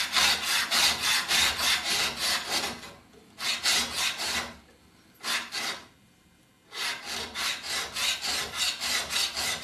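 A steel card scraper's long edge rubbed rapidly back and forth along a bastard file clamped in a bench vise: a dry rasping of about four strokes a second, with short pauses about a third of the way in and just past the middle. It is the jointing and squaring of the scraper's edge, before the edge is honed on a stone.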